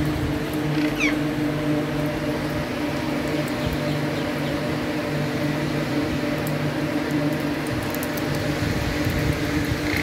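Alexandrine parakeet giving a short, high call that falls in pitch about a second in, and another near the end, over a steady low mechanical hum and a few faint clicks.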